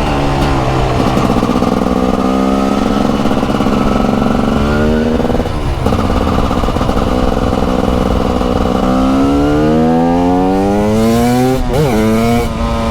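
TM SMR 300 supermoto's 300cc two-stroke single-cylinder engine pulling under throttle: the revs fall in the first second, hold steady, dip sharply about five seconds in, then climb steadily for several seconds. Near the end the revs drop and rise again quickly, as at a gear change.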